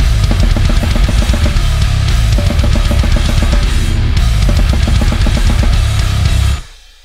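Acoustic drum kit played fast and hard in a goregrind song, kick drum, snare and cymbals together in a dense, heavy mix. Near the end everything cuts out abruptly for a short break.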